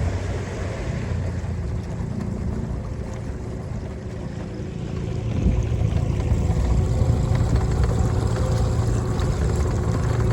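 A small fishing boat's motor running steadily while the boat is under way, with water and wind noise; it gets a little louder about halfway through.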